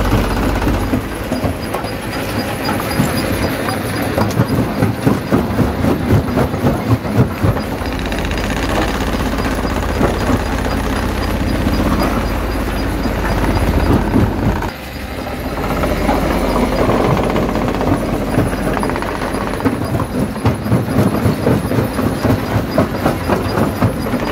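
Jaw crusher crushing rock, a loud continuous grinding rumble with stretches of rhythmic knocking about twice a second. The level drops briefly about halfway through.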